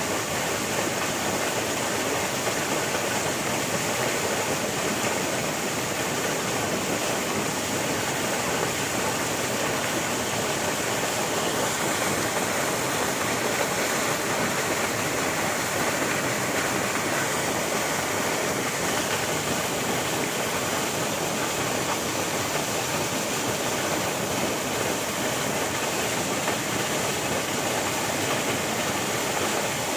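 River water flowing and rushing steadily in an even, unbroken wash.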